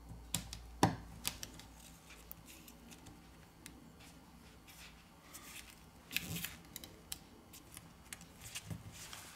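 Faint scattered clicks and light scraping of a plastic spudger pressing a phone's flex-cable connectors and cable back into place on the board and metal midframe. There are two sharp clicks in the first second, a cluster of clicks about six seconds in, and more near the end.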